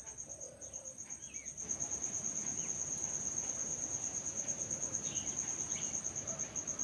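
Crickets trilling steadily in a high, rapidly pulsing tone, with a few short bird chirps.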